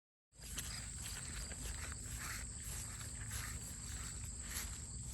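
Steady high-pitched insect chirring, beginning a moment in, over a low outdoor rumble, with faint footsteps and rustling.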